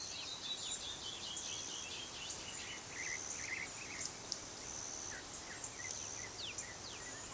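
Faint summer countryside ambience: insects chirping in repeated short high buzzes, with scattered short bird chirps over a light outdoor hiss.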